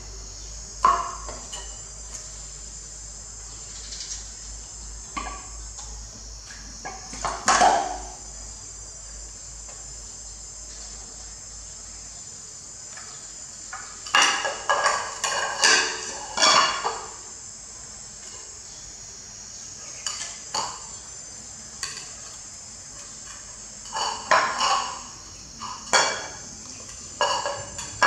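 A plastic plate and a plastic baby bottle knock and clatter on a tiled floor as a young monkey handles them, in scattered single knocks and two bunches of rapid clatters. Under them runs a steady high-pitched drone of insects.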